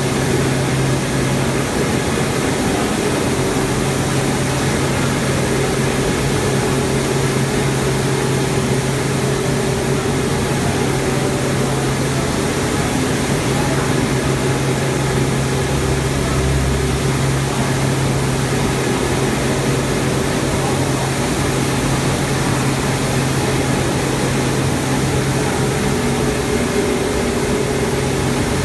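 Rice milling machinery running steadily: a loud, constant mechanical din with a low, even hum.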